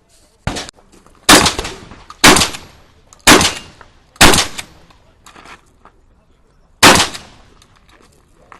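Shotgun shots: four loud shots about a second apart, then a fifth after a pause of roughly two and a half seconds, each with a short echoing tail, preceded by a fainter bang about half a second in.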